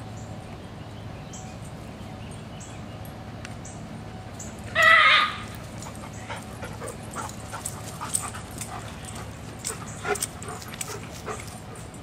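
A dog gives one loud, short cry about five seconds in, lasting about half a second. After it come scattered faint taps and rustles.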